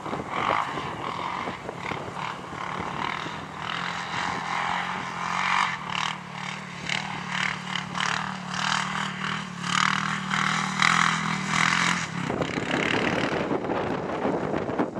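Yamaha YFZ450 quad's single-cylinder four-stroke engine running under throttle with a steady note as it is ridden toward and past. About twelve seconds in, the engine note drops away and a rushing noise, like wind on the microphone, takes over.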